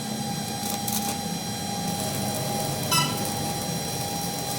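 A machine running steadily with a constant hum and whine, and a brief high squeak about three seconds in.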